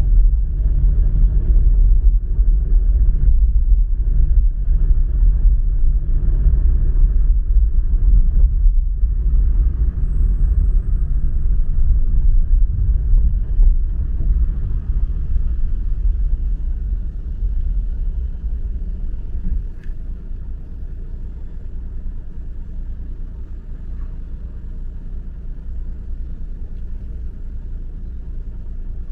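Car driving on a city street: a steady low rumble of engine and road noise, settling somewhat quieter about two-thirds of the way through.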